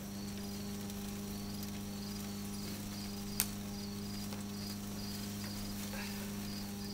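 Insects chirping in a steady rhythm, about two chirps a second, over a steady low hum, with one sharp click about three and a half seconds in.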